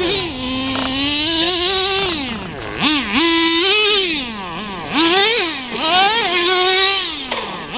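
Radio-controlled car's motor revving, its pitch climbing and dropping several times as the car speeds up and slows.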